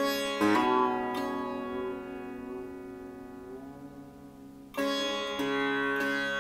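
Solo sitar: a few plucked notes at the start ring on with many overtones, one note slides upward about three and a half seconds in, and a fresh group of plucks comes near the end.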